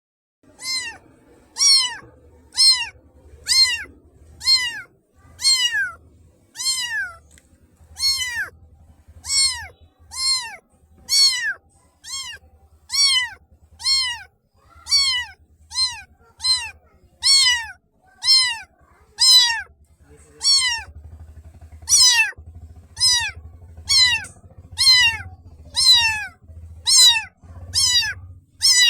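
Kitten meowing over and over, about one high meow a second, each call rising and then falling in pitch.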